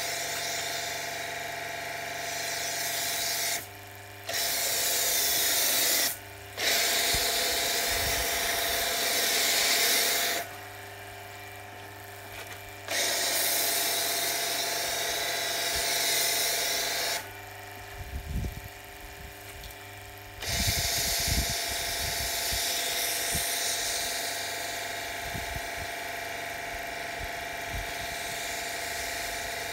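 Pressure washer spraying snow foam through a foam lance: the pump motor's steady whine under the hiss of the spray. It runs in five spells of a few seconds each, cutting off and starting again abruptly as the trigger is released and pulled.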